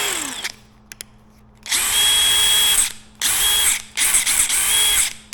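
DeWalt 20V brushless 3/8-inch cordless impact wrench run in four short trigger bursts, its motor spinning up and stopping abruptly each time, the second burst the longest at about a second.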